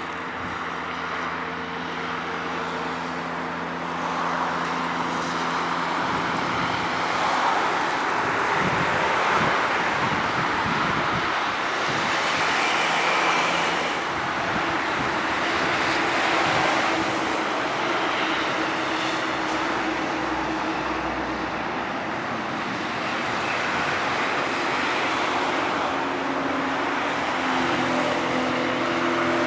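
Roar of a Boeing 737-800's CFM56 jet engines as the airliner comes in to land, swelling a few seconds in and then holding steady.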